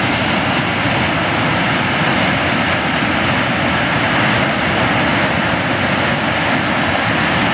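Muddy floodwater pouring over a weir below a barrage: loud, steady rushing of falling water.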